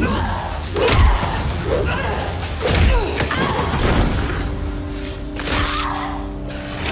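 Fight-scene soundtrack: heavy punch and body-fall impacts with pained cries and a scream, over a dramatic score that settles into a held chord in the second half.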